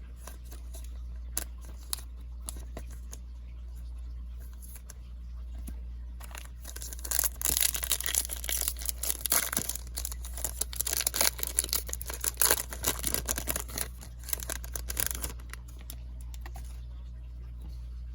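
Trading card pack wrapper being torn open and crinkled: a run of irregular crackling from about six to fifteen seconds in, with a few light clicks before it, over a low steady hum.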